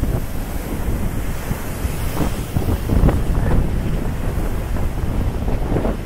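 Strong gusting wind buffeting the microphone over heavy surf breaking and washing up a beach, with irregular rises and falls in a constant rumble.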